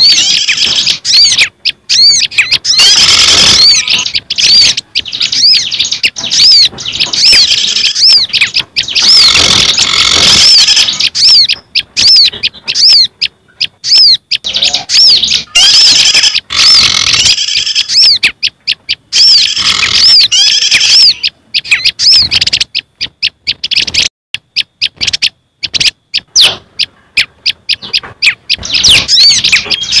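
Bird-lure recording mixing the calls of small garden songbirds (prenjak and ciblek prinias, sirtu, sogok ontong spiderhunter), used to draw small birds in for trapping. It plays as runs of quick, high chirps, several a second, in bursts with short gaps.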